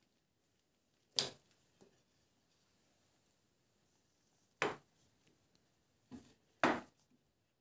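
Sharp wooden knocks of cut hardwood segments for an end-grain board being set down into place: one about a second in, another some three seconds later, then a lighter and a louder one close together near the end.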